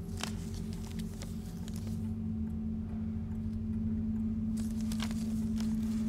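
Low, steady drone of a horror film score, slowly swelling in level, with scattered light crackles and clicks from a strip of film negative being handled.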